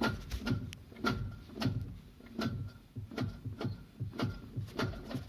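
Light rattling knocks, about two a second, from a Lada Priora's clutch and gearbox as a raised wheel is rocked back and forth. The owner takes it for the clutch's diaphragm springs having broken apart.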